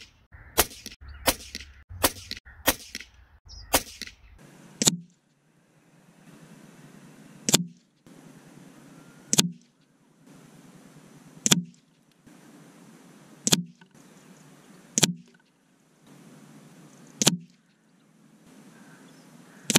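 A string of about fifteen sharp cracks from a .177 Anschutz 9015 air rifle firing pellets. The shots come quickly at first, then about every two seconds.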